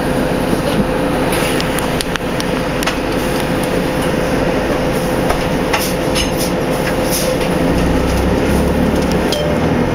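Cabin noise inside a 2003 Orion VII city bus with its Detroit Diesel Series 50 engine running: a steady drone with a steady whine, and frequent small rattles and clicks from the body and fittings. About eight seconds in, a deeper engine note comes up.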